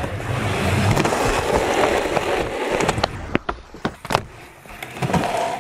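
Skateboard wheels rolling on concrete, then a run of sharp cracks and clacks as the already-cracked deck pops a frontside flip and lands.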